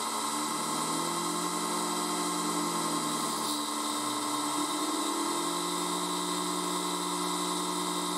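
CNC milling machine cutting an aluminium alloy part with an end mill: a steady spindle and cutting whine made of several held tones over a hiss. Lower tones slide up and down as the machine moves.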